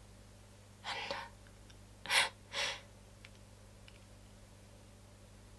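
A woman's audible breaths: one breath about a second in, then two quick, sharp breaths a little after two seconds, over a faint steady low hum.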